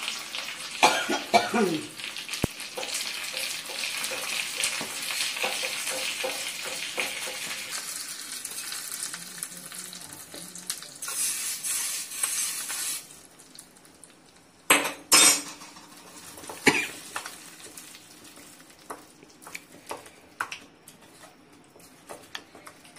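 Mustard seeds, dry chilli and mint leaves sizzling in hot oil in a small tempering ladle. The sizzle fades, then flares again briefly as the hot tempering is poured over the chutney in a steel bowl. After that come a few sharp metal knocks of the ladle and bowl and faint clicking as the tempering is mixed in.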